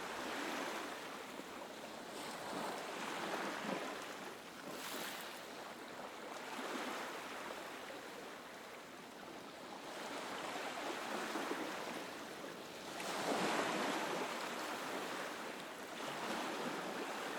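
Small, gentle ocean waves breaking and washing up a sandy beach, the surf swelling and easing every few seconds, with one louder wave about two thirds of the way through.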